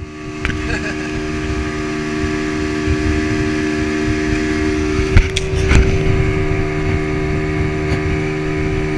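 Outboard motor running steadily at cruising speed, driving a longboat along. Two sharp knocks come a little past halfway.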